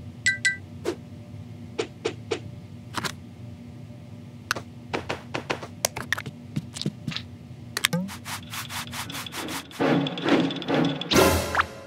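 Cartoon sound effects: a string of light taps and clicks, then a louder stretch of rubbing and scraping from about ten seconds in, over a faint steady hum.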